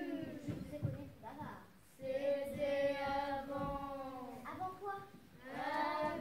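Children's voices singing long held notes, with short breaks about two seconds in and again near the end.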